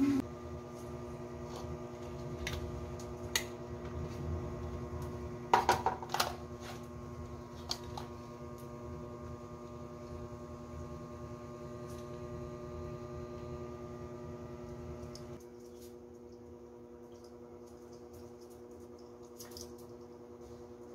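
Quiet room tone with a steady electrical hum, broken by scattered light clicks and rustles from handling, loudest in a short cluster about six seconds in.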